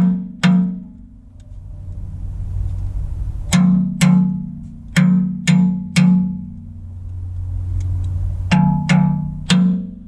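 Hammer striking a steel punch to drive the retaining pin into a backhoe bucket tooth on its shank: about ten sharp, ringing metal blows in clusters of two or three, with pauses between.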